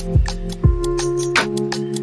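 Instrumental background music: held chords over a steady drum beat.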